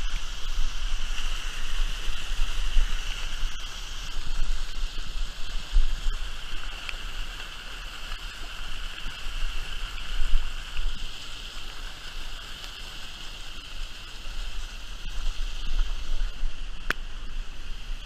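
Steady rush of a mountain river flowing over rocks and small falls, with an uneven low rumble underneath and a few faint clicks.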